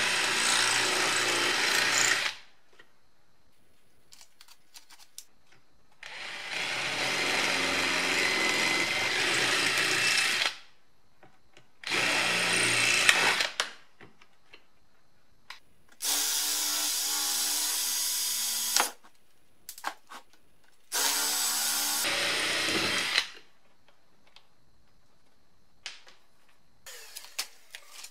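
Stanley Fatmax cordless drill drilling out rivets in a plastic heater housing. It runs in five bursts of a few seconds each, with short pauses between them. A few light clicks of the parts being handled come near the end.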